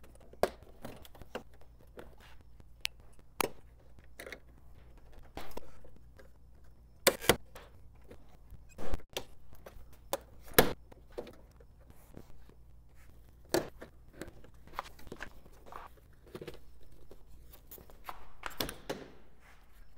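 Irregular clicks, knocks and thunks of hands working on the 4th-gen Toyota 4Runner's grille parts, with a few louder knocks about seven, nine and ten and a half seconds in, over a faint low hum.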